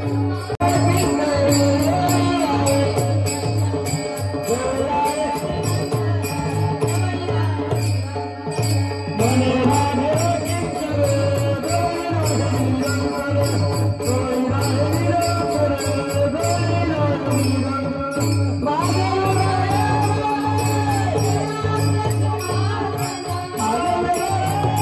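Kirtan devotional music: a melody over a steady drum beat, with small hand cymbals jingling in even time.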